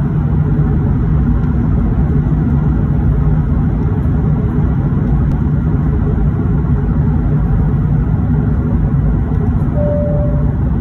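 Steady roar of an airBaltic Airbus A220-300 airliner in flight, heard in the passenger cabin: a loud, even rumble of engine and airflow noise. A brief single-tone cabin chime sounds near the end.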